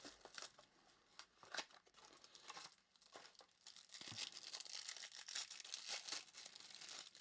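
A trading-card pack wrapper being torn open and crinkled, faint, starting about four seconds in, after a few light clicks of cards being handled.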